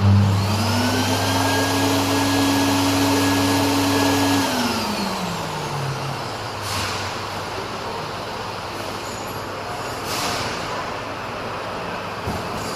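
Air-pop popcorn vending machine running. A motor with a low hum starts suddenly, whines up in pitch, holds steady for about four seconds, then winds down over a steady rush of air. Two short whooshes follow later on.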